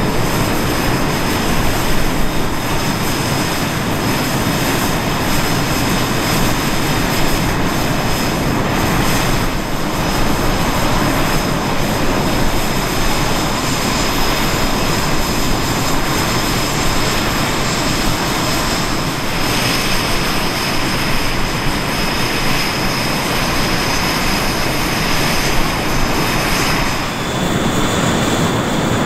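SEPECAT Jaguar jets' Rolls-Royce Turbomeca Adour turbofan engines running on the ground: a loud, steady jet rush with a high whine held over it. About 27 s in, the whine shifts in pitch.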